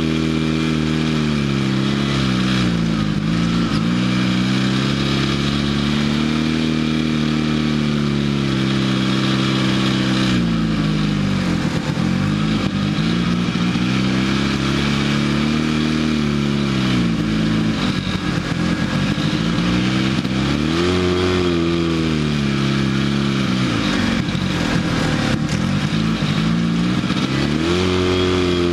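Off-road vehicle engine running hard under changing throttle. Its pitch climbs and falls again and again, with several sharp drops where the revs fall away before it pulls up again.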